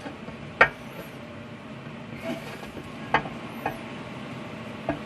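Four sharp metallic clicks and knocks, two of them ringing briefly: a metal intercooler charge pipe and quick-release clamp being handled and test-fitted to a throttle body.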